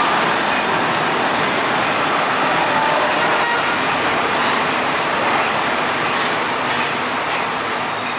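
Steady traffic noise at a railroad crossing: the last cars of a double-stack freight train rolling past, then a semi truck and cars crossing the tracks. The sound fades down near the end.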